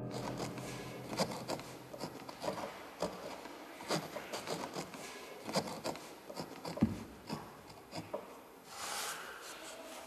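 A pen scratching on paper in short, irregular strokes as someone writes in a notebook, with soft rubs of hand and paper and a longer rub near the end.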